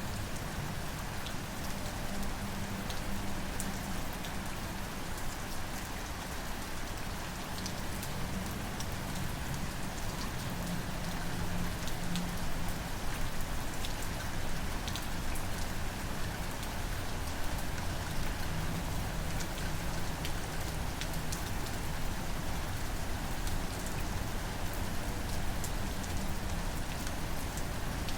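Steady rain falling, with scattered individual drops ticking sharply, over a low, wavering hum.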